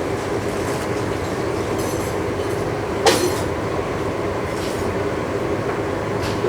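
A knife cutting crispy deep-fried seafood fritters into segments, with one sharp knock of the blade on the board about three seconds in and a few fainter ticks, over a steady background hum.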